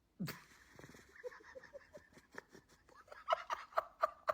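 An animal's rapid run of short, repeated calls, about five a second, growing louder near the end.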